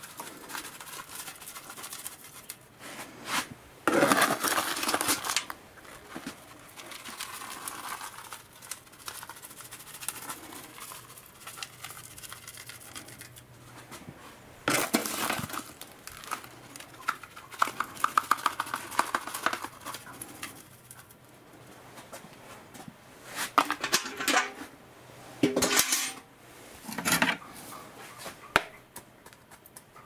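A spade digging and turning over soil: scraping, gritty strokes in irregular bursts, with clinks of the blade, as wood ash is worked in.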